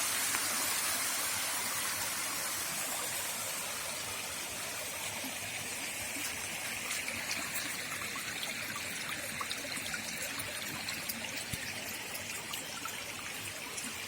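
Rain-fed monsoon waterfall: water rushing and splashing steadily, easing a little in loudness over the first few seconds.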